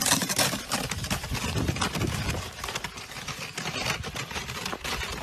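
Snow scraping and crunching under a snowboard sliding over it, a continuous rough noise full of small irregular ticks that eases a little toward the end.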